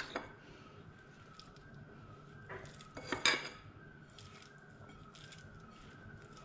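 Kitchen bowls and utensils clinking and knocking a few times while dough is being prepared, loudest just after three seconds in. A faint wavering high tone runs underneath.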